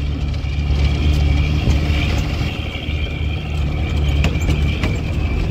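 Bus running along a hill road, heard from inside the cabin: a steady low engine and road rumble with a steady high-pitched tone over it and a couple of short rattles past the middle.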